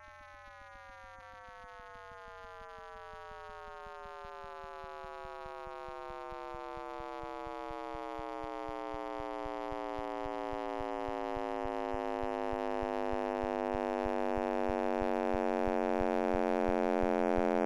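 Synthesized tone rich in overtones, sliding slowly and steadily down in pitch while it grows steadily louder: an electronic sonification presented as the sound of the Big Bang.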